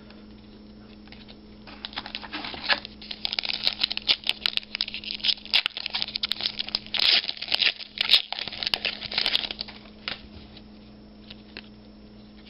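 Crinkling and tearing of a trading-card pack's foil wrapper as it is ripped open by hand: a dense run of sharp crackles lasting several seconds, starting about two seconds in, over a faint steady hum.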